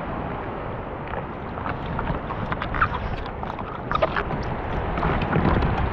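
Steady rushing noise, like wind buffeting the microphone during a ride, with scattered knocks and rattles that grow more frequent after about two seconds.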